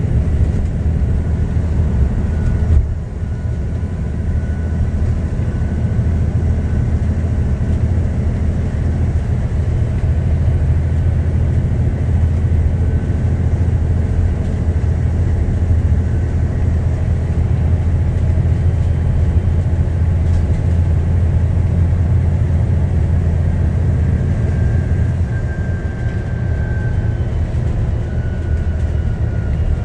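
ADL Enviro 400 MMC double-decker bus running at speed, heard from inside the upper deck: a loud, steady, deep engine and road drone with a faint whine above it. The drone dips briefly about three seconds in, and the whine shifts pitch near the end.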